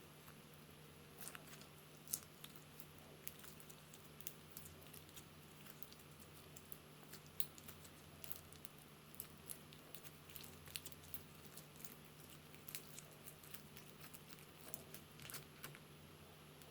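Slime being kneaded and squished by hand: faint, irregular sticky clicks and small pops, over a steady low hum.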